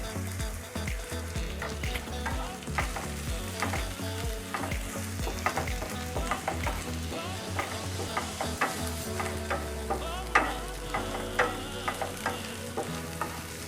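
Onions, garlic and dried red chillies sizzling in oil in a pan, with a spatula stirring them and clicking and scraping against the pan many times. The onions are being sautéed until they turn brownish.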